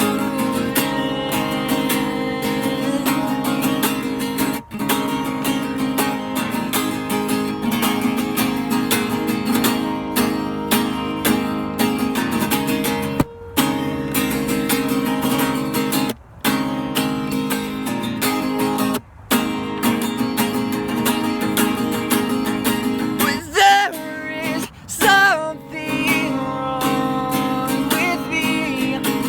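Acoustic guitar strummed steadily as a song accompaniment, stopping briefly three times midway. A voice sings without clear words near the end.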